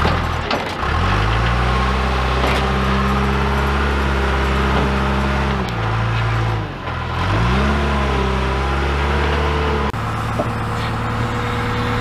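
John Deere 310G backhoe loader's diesel engine revving up under load, holding high revs, dropping back briefly about halfway through, then revving up again. Near the end it settles to a steadier, lower note.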